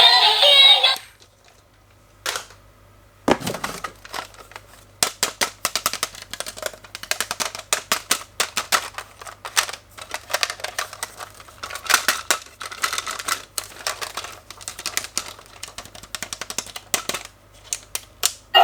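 A song with singing cuts off about a second in. After a short lull with a click and a knock, there is a long run of rapid, irregular clicking and clattering, like small plastic parts or toy packaging being handled.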